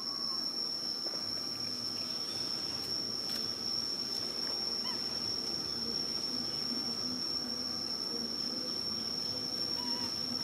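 Steady high-pitched insect drone over a constant outdoor hiss and low hum, with a few faint short chirps.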